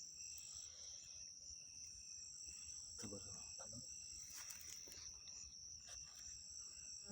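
Faint, steady high-pitched insect trilling, with a few light clicks and a brief faint voice about three seconds in.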